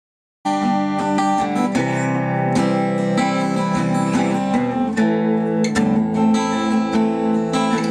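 Restored Lyon & Healy parlor acoustic guitar with silk-and-steel strings, playing ringing chords struck two or three times a second. The playing starts abruptly about half a second in.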